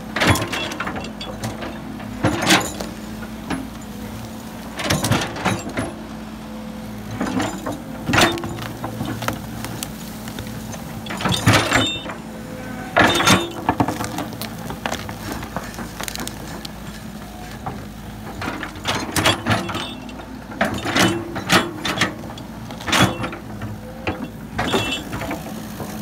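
Tracked hydraulic excavator running steadily close by, with loud crunching, scraping bursts every second or few as its toothed bucket digs into soil and roots.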